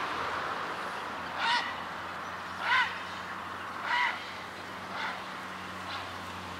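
A goose honking in flight: five separate honks about a second apart, each rising and falling in pitch, the second the loudest and the last ones fading, over a faint steady low hum.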